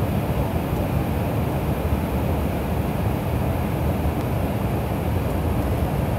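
Steady rumble of airliner cabin noise: jet engines and rushing airflow heard from inside the passenger cabin, with no change in level.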